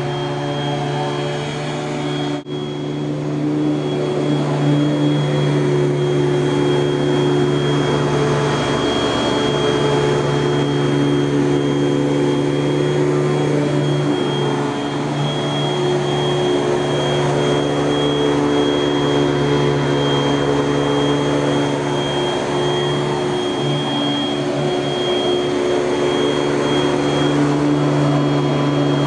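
1984 Panasonic Jet-Flo MC-5116 upright vacuum cleaner running steadily, its motor fan giving a low hum with a high whine on top; its fan has been rebalanced. The sound drops out briefly about two and a half seconds in, then carries on slightly louder.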